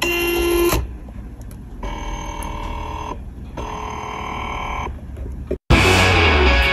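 A short electronic tone, then two long, steady electronic ringing tones, each about a second and a quarter with a brief gap between, like a telephone ring. Music starts abruptly near the end.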